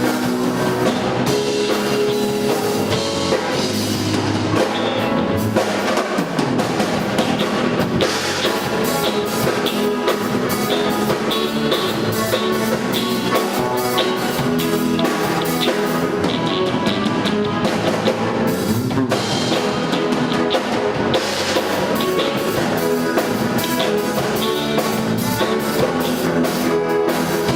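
Live band playing at a sound check, with drum kit, bass drum and guitar.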